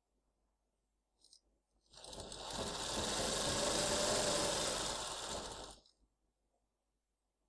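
Sewing machine stitching an edging strip onto fabric for about four seconds, speeding up at the start, running steadily, then slowing to a stop. A faint click comes just over a second in, before the run.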